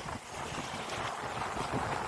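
Wind buffeting the microphone: a steady, unpitched rumble and hiss.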